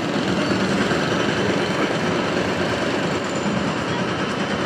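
A train running past on the rail tracks: a steady, dense rumble.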